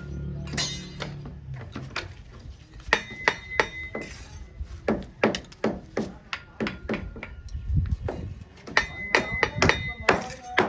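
Bricklaying work: a steel mason's tool tapping and knocking on brick and mortar, a run of sharp metallic taps in quick clusters, several with a short ring.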